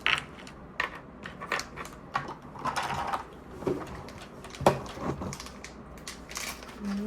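Small plastic toy pieces and packaging being handled: a string of light plastic clicks and taps with short bits of crinkling, the sharpest tap a little before five seconds in.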